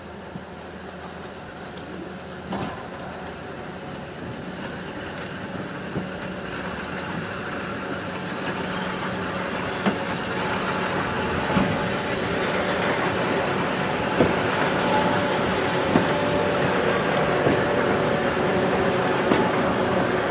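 Three coupled EF63 electric locomotives rolling slowly past with a steady electric hum that grows louder as they come close. Wheels click over rail joints every couple of seconds.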